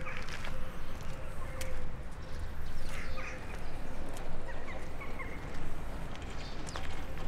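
Outdoor ambience of someone walking: scattered footsteps and a few short high chirps over a low rumble and a faint steady hum.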